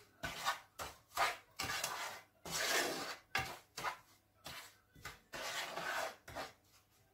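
A wooden spoon stirring butter and granulated sugar in a frying pan, scraping across the pan bottom in uneven strokes about twice a second, with a couple of longer sweeps.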